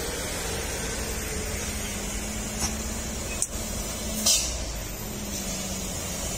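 Heavy cargo truck's diesel engine running with a steady low drone, and three short, sharp hisses of air.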